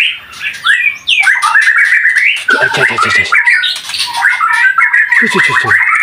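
Jalak (starling) alarm calling: rapid runs of harsh, scolding squawks one after another, raised at a snake that has got into the aviary. A lower, rougher call joins in twice, about two and a half and five seconds in.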